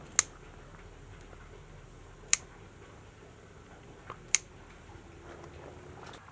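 Scissors snipping the woody stems of a potted plant during pruning: three sharp snips about two seconds apart, with a fainter click just before the third.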